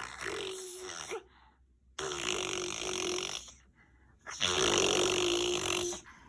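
A baby making strange raspy, breathy vocal noises, a held voice under a rush of breath, in three drawn-out bouts.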